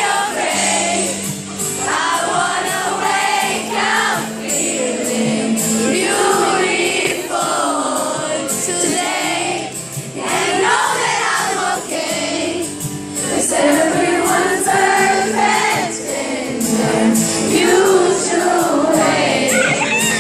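A song performed live: a lead voice singing a melody over steady held instrumental accompaniment, with many voices singing along.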